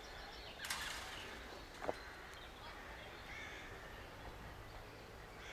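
A short harsh bird call about a second in, over faint outdoor background noise, followed by a sharp click.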